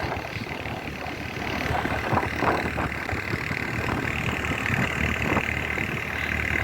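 Vehicle engine running steadily while travelling on a rough road, with scattered knocks and rattles.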